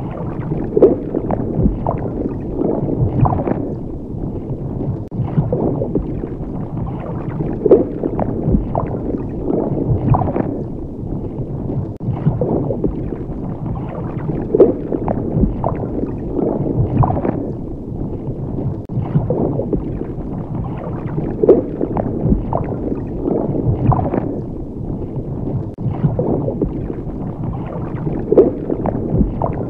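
Low underwater gurgling and bubbling water, swelling and falling in a regular pulse about every two seconds.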